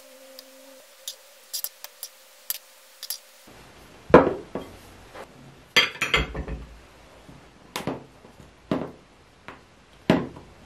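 Light sharp clicks of metal kitchen tongs, then a run of clinks and knocks as a small glass bowl and a plate are set down on a table and handled with utensils, the loudest about four and six seconds in.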